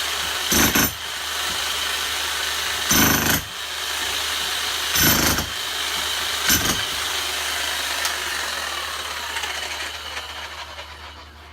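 Bosch electric demolition hammer running steadily against a brick and mortar fireplace, with four louder crashes of breaking brick spread through it. The hammering fades away near the end.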